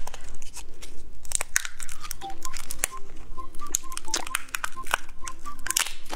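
Clear plastic lollipop wrapper being torn open and crinkled by hand: a dense run of sharp crackles and tearing sounds.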